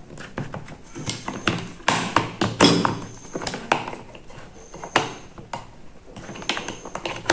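Irregular plastic clicks, taps and knocks with light rustling from a cordless animal clipper and its plastic charging stand being handled and set together.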